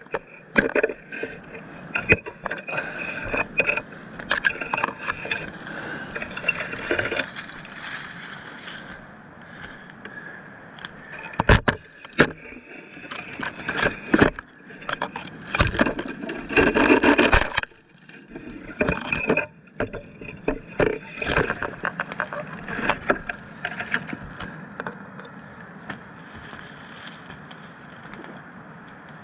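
Irregular knocks, cracks and scraping: wood or brush being handled and struck, with a denser run of scraping and thuds in the middle.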